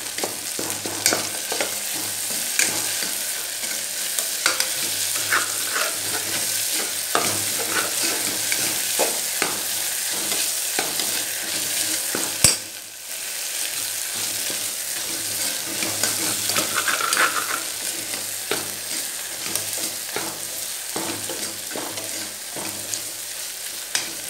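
Tomato, shallots and spices sizzling in hot oil in an aluminium pressure cooker while a steel ladle stirs and scrapes against the pot, giving frequent short clinks over the steady sizzle. This is the stage of sautéing the tomato until it mashes down. About halfway through comes one sharp, loud click.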